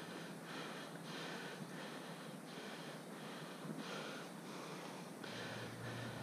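A person breathing hard close to the microphone, in and out about once a second.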